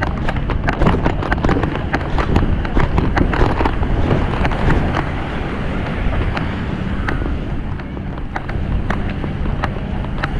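Wind buffeting the microphone of a walking camera, with a dense run of sharp clicks and knocks through the first half that thins out after about five seconds.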